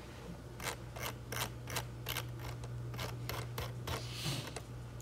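A quick, irregular series of about a dozen sharp clicks over some three seconds, then a brief rustle, over a steady low hum.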